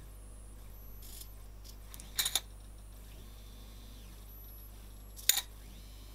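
Small geared stepper motors of a DIY robot arm whining faintly, the pitch rising, holding and falling as each move speeds up and slows down. A brief clatter of clicks comes about two seconds in, and a single sharp clack a little after five seconds; these clicks are the loudest sounds.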